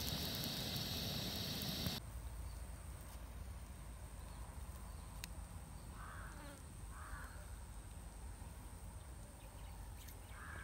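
Egg omelette sizzling in a pan on a camp stove, cutting off suddenly after about two seconds. Then faint outdoor ambience with a steady high hiss and two brief animal calls about six and a half and seven seconds in.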